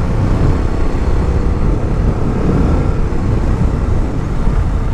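Motorcycle riding steadily, with steady wind noise on the microphone over the engine.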